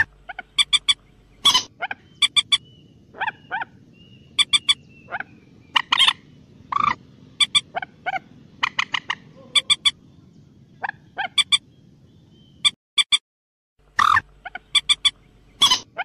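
Common moorhen calling: many short, sharp clucks and quick runs of three or four clicking notes, coming irregularly one after another over a faint low hum, with a brief pause about three-quarters of the way through.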